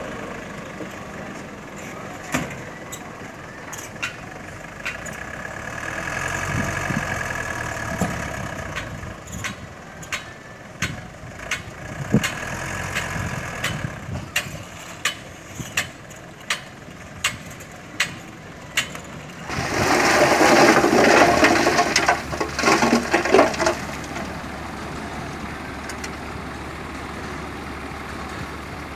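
Diesel engine of a heavily loaded small dump truck running as it drives and manoeuvres, with a swell in engine noise and many sharp clicks and knocks. About two-thirds of the way through comes a loud, rough, noisy burst lasting about four seconds, then a steadier, quieter run.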